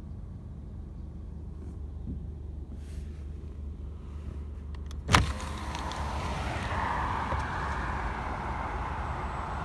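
Car cabin noise while riding in slow traffic: a steady low rumble of engine and road. A sharp click about halfway through, after which the road and traffic noise is louder and fuller.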